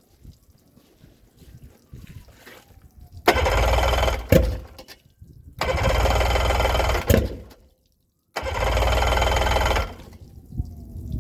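Yamaha 90 engine cranked on its starter in three bursts of about one and a half to two seconds each, turning over without firing: a crank-no-start after the CDI unit was swapped.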